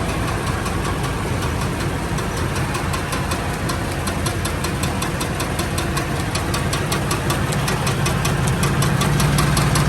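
2008 Toyota Tundra running with its driveline turning, with a rapid, regular ticking of about five clicks a second over the steady running sound. This is the clicking noise in four-wheel drive, which turns out to be caused by a sticker on the front propeller shaft.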